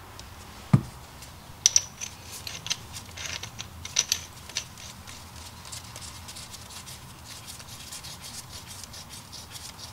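A metric 22 x 1.5 tap being turned by hand through a steel wheel nut to chase its hammer-damaged threads: a dull knock about a second in, then irregular metal-on-metal clicks and scraping that settle into a fainter steady rasp.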